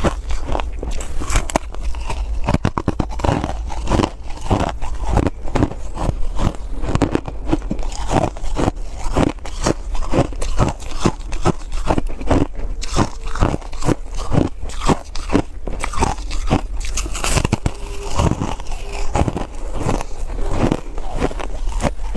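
Close-miked crunching and chewing of a block of purple foam ice, a steady run of crisp crunches several times a second.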